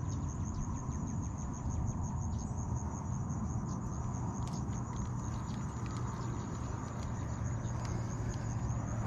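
A cricket chirping in a fast, even pulse, a thin high tone, over a low rumble of wind on the microphone.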